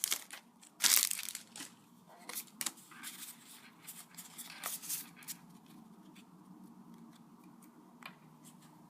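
A Pokémon trading-card booster pack's foil wrapper ripped open with a loud tear about a second in, the foil crinkling. Smaller rustles and taps follow over the next few seconds.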